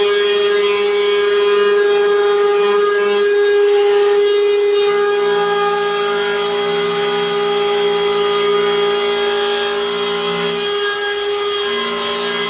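HiKOKI cordless router running at a steady whine while its long cutter routes a lock mortise into the edge of a wooden door; the cutting sound shifts slightly a few seconds in and near the end.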